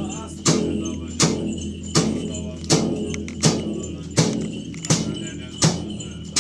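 Music with a steady, slow beat of sharp, ringing percussion strikes, a little under one and a half a second, over a low steady drone.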